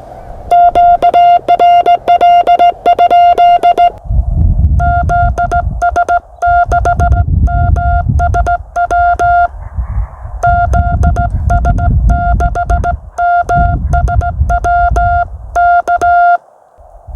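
Morse code (CW) from a ham radio transceiver: a steady tone of about 700 Hz keyed in short and long dots and dashes, with clicks at the keying edges. From about four seconds in, a low rumble runs under the keying, and the tone stops near the end.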